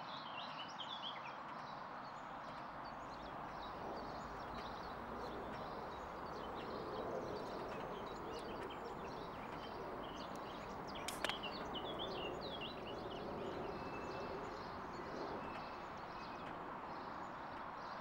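Birds chirping and twittering over a steady outdoor background hiss, with a single sharp click about eleven seconds in.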